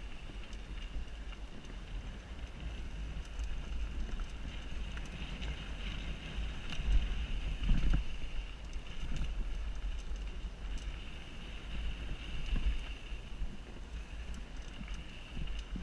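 Wind buffeting a helmet-mounted GoPro's microphone during a mountain bike ride: a steady low rumble under a thin high hiss, with louder gusts about seven and eight seconds in.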